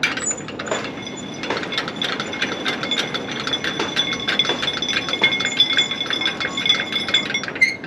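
Rapid metallic clicking of a flatbed trailer's strap-winch ratchet as a cargo strap is worked, with a ringing metal tone; it stops near the end.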